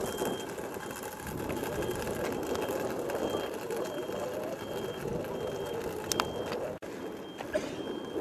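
Measuring wheel rolling along asphalt, a steady whirring rattle, with faint short high beeps recurring every second or so and a brief click or two near the end.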